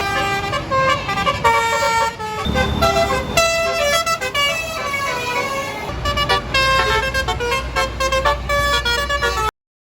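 Tour bus basuri horn playing a quick multi-note telolet melody, one steady-pitched note after another, over the low running of bus engines. The sound cuts off abruptly near the end.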